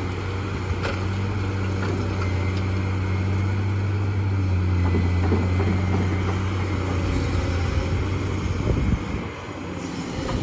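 Heavy machine engine running steadily, a low even drone with a brief drop in level about nine seconds in.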